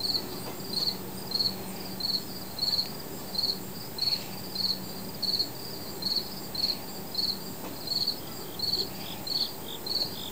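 An insect chirping steadily: short, high-pitched chirps repeating evenly, roughly three every two seconds.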